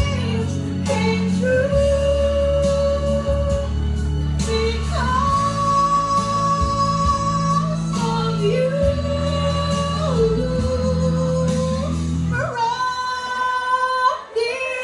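A song playing, with a woman singing long held notes over a steady bass line; the bass drops out about twelve and a half seconds in, leaving the voice alone for a moment.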